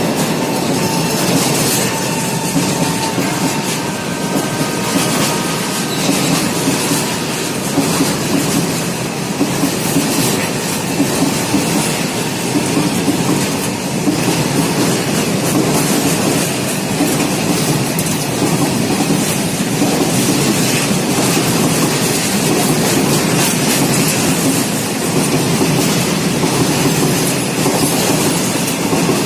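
Freight wagons of a goods train rolling past at close range: a steady clatter of wheels over rail joints, with faint wheel squeal in the first few seconds.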